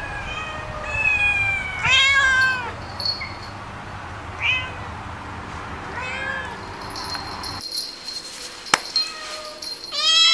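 Domestic cats meowing: a string of short meows in the first part, then a loud, drawn-out meow starting near the end. A single sharp click comes shortly before that last meow.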